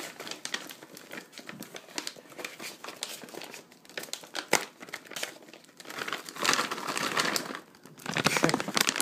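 Crinkling and rustling of plastic packaging being handled, in irregular crackly bursts that grow louder about six seconds in and again near the end.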